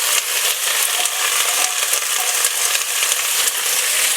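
Sliced onion frying in hot oil in a heavy-bottomed pan: a steady sizzling hiss with fine crackles.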